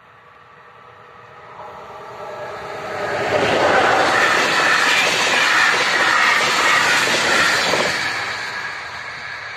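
Electric locomotive and passenger coaches passing through a level crossing at speed. The rush of wheels and air builds over about three seconds, stays loud for about four seconds as the train goes by, then fades.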